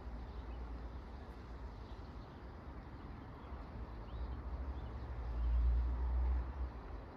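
Outdoor ambience: a steady hiss with a low rumble that swells for about a second and a half past the middle, and a few faint high chirps.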